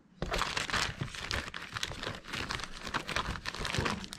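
A clear plastic bag crinkling as a paper user guide inside it is handled: a dense run of crackles that starts about a quarter second in.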